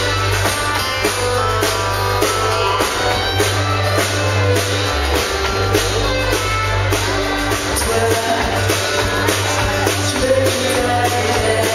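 Live country band playing with a steady drum-kit beat, bass guitar and guitar, and a woman singing into a microphone over it.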